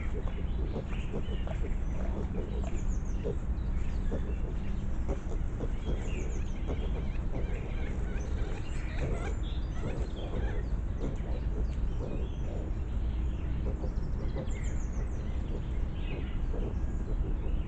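Wild boar piglets squeaking in short, scattered calls as they root through dry leaf litter, over a steady low background noise; a bird chirps a few times.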